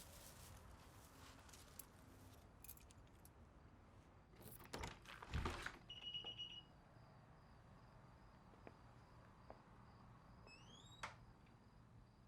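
Mostly near-silent room tone. About five seconds in there is a burst of handling and clattering noises, followed by a short electronic beep. Near the end a quick rising electronic chirp ends in a click.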